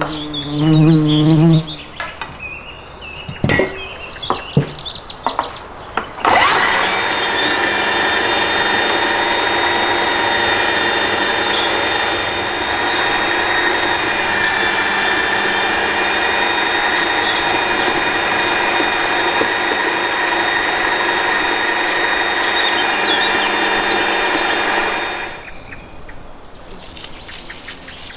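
A small electric motor runs at an even speed for about nineteen seconds, starting about six seconds in and cutting off near the end. Before it come a few sharp knocks.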